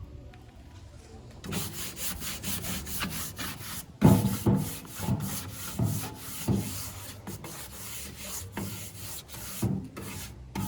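Sandpaper rubbed by hand over a wooden board in quick back-and-forth strokes, about two or three a second, starting about a second and a half in and getting louder about four seconds in.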